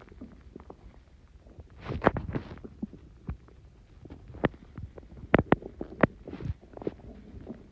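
Human stomach gurgling and popping, full of gas from Coke and Mentos: irregular bubbly rumbles with sharp pops, a loud gurgle about two seconds in and a cluster of sharp pops past the middle.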